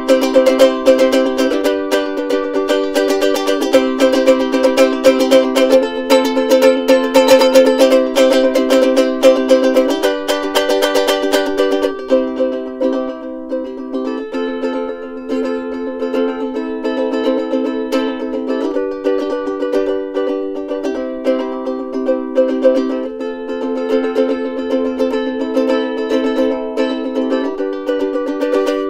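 Soprano ukulele music: chords strummed busily for about twelve seconds, then played more lightly and sparsely, changing chord every couple of seconds.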